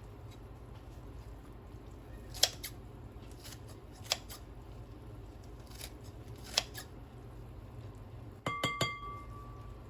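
Three sharp, separate clicks of kitchen tools a couple of seconds apart, then near the end a quick clatter and the ringing clink of a dish or utensil, with a low steady hum underneath.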